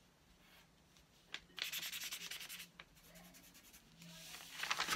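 Felt-tip markers scratching and rubbing on paper in quick strokes, in two spells: one starting about a second and a half in and another near the end.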